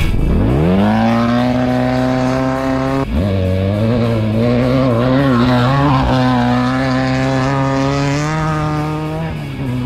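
Off-road race vehicle engine at high revs: the pitch climbs quickly in the first second and then holds. It drops sharply about three seconds in and comes straight back up, wavers for a couple of seconds, and dips again near the end.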